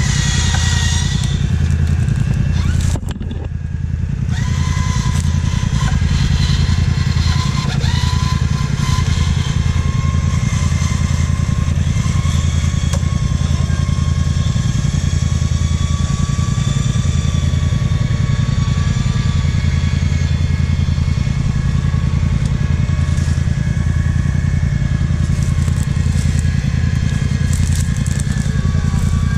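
Quad (ATV) engine running steadily close by, with a low engine note and a whine over it; the sound drops briefly about three seconds in, then carries on.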